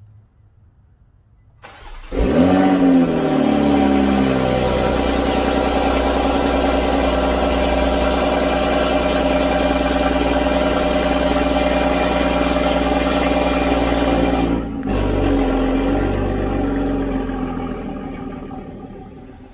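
2020 Toyota Supra's turbocharged B58 inline-six, with a downpipe and stage 2 tune, cold-starting: a brief crank, then it catches with a loud flare that falls within a couple of seconds to a steady fast cold idle. It fades away over the last few seconds.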